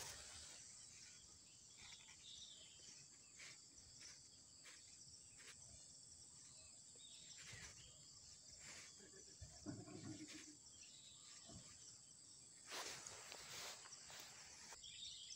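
Quiet outdoor background: a faint, steady high-pitched drone of insects, with a few soft rustles and light taps from plastic bags being handled, the loudest a short cluster near the end.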